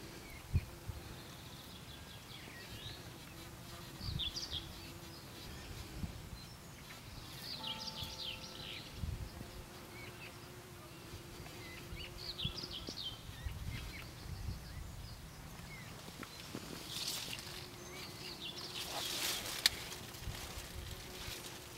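A bee buzzing in flight: a steady hum that comes and goes as it flies near and away.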